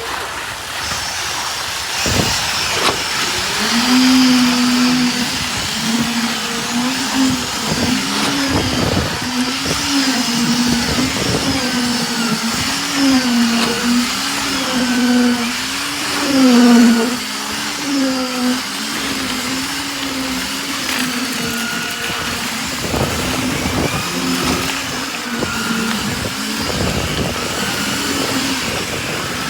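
Engine of the concrete-pouring machinery running steadily, its pitch swinging up and down again and again as the load changes, over a constant noisy rumble.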